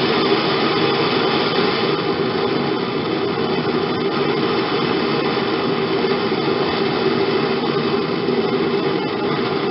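Propane hand torch burning with a steady, unbroken rushing noise as its flame heats the band saw blade joint red hot for brazing.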